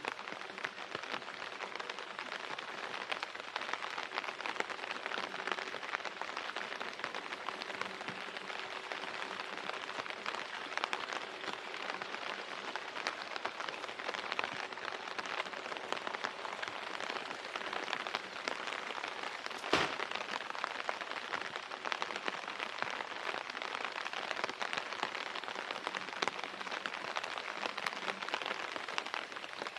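Steady rain falling, a dense hiss of small drop ticks, with one sharper knock about twenty seconds in.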